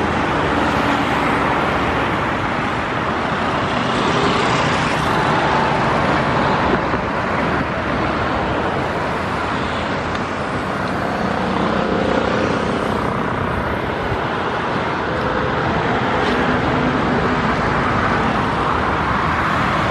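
Steady road traffic noise from passing motor scooters, motorbikes and a van, with faint engine tones rising and falling as they go by.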